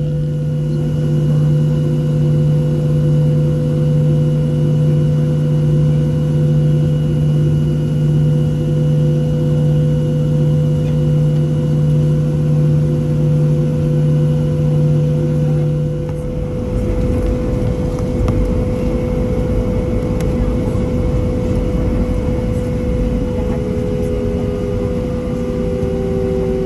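Airliner cabin noise during takeoff: a steady engine hum with several fixed tones, then about sixteen seconds in the pitched hum gives way to a heavier, even low rumble as the jet rolls and climbs.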